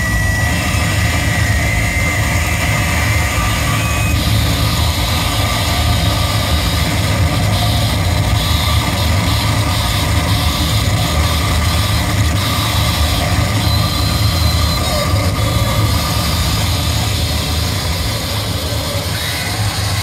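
Harsh noise music played live on electronics: a steady, loud wall of distorted noise with a heavy low rumble beneath it. A harsher high hiss comes in about four seconds in.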